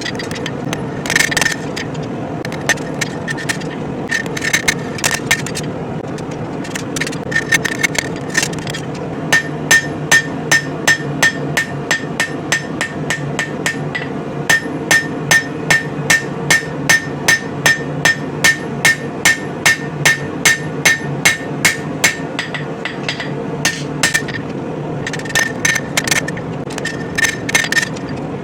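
Hammer blows on hot coil-spring steel over an anvil, each strike ringing: a few short groups with pauses, then a steady run of about two blows a second, then a few more near the end. A steady roar from the propane forge runs underneath.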